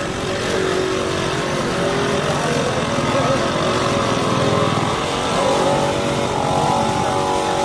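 A vehicle engine running steadily close by.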